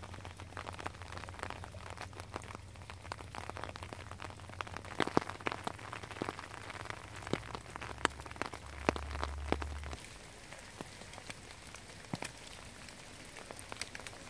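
Rain falling on wet bush, many separate drops pattering and ticking on leaves and leaf litter. A low steady rumble underneath cuts off about ten seconds in.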